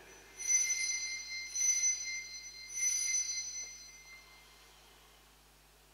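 Altar bells (Sanctus bells) rung three times, about a second apart, marking the elevation of the chalice at the consecration. Each ring is a cluster of high, bright bell tones, and the last one fades away about four seconds in.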